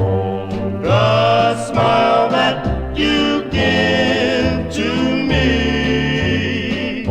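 Doo-wop ballad: a male vocal group sings sustained, wavering harmony lines over a low bass part.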